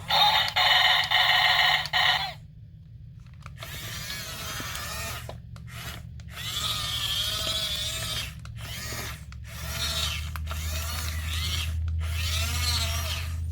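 A remote-control toy bulldozer's small electric gear motors whirring as its arm is raised, in several runs of a few seconds each, with a steady low hum beneath. The whine is loudest in the first two seconds.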